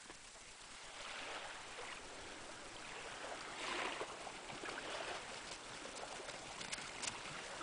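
Faint shoreline ambience: small waves lapping gently on a stony beach, with a few faint clicks near the end.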